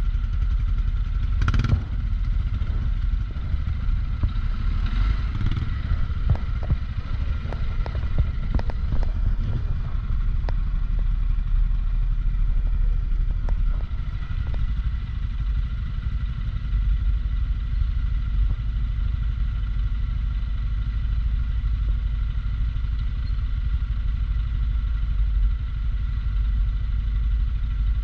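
CFMOTO CForce ATV engine running steadily at low speed on a rough, rocky descent, with scattered clicks and knocks from stones and the machine jolting over the ground, most of them in the first ten seconds or so.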